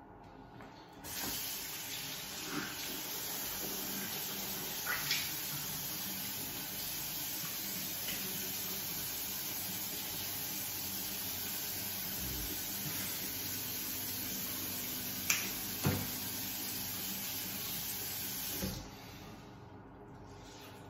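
Bathroom sink tap running steadily into the basin, turned on about a second in and shut off near the end, with a few light knocks from things handled at the sink.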